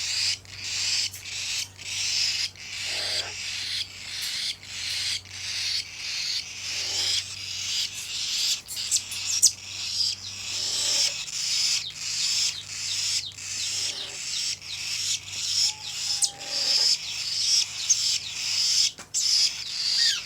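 Baby cockatiels making raspy, hissing begging calls over and over, about one and a half times a second.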